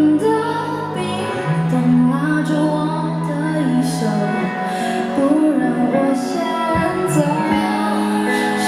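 A female singer performing a ballad live with a backing band, recorded from the audience through the concert's PA.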